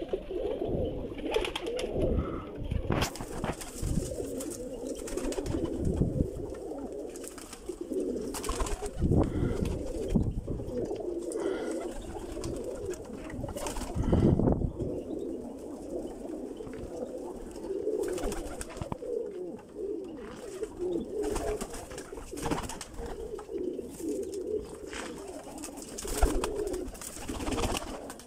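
Many domestic pigeons cooing over one another without a break, with scattered short flutters and claps of wings.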